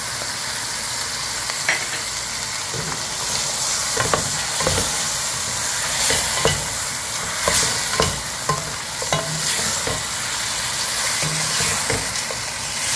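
Bone-in meat and garlic sizzling as they fry in oil in a granite-coated pot, while a wooden spoon stirs them, scraping and knocking against the pot at irregular moments about once a second.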